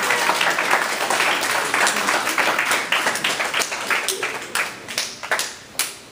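Audience applauding: dense clapping that thins out to a few scattered single claps over the last couple of seconds.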